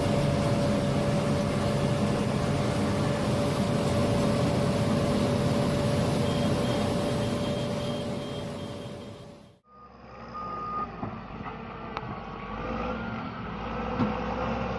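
Heavy mining machinery running, with loud engine noise and a steady whine. A faint back-up alarm beeps for a couple of seconds near the middle. The sound fades out about two-thirds of the way through and gives way to a quieter heavy-machine engine rumble with a wavering whine.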